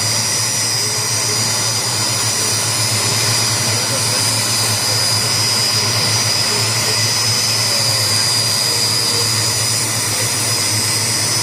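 Helicopter running steadily close by: a constant high turbine whine over the rotor and engine noise.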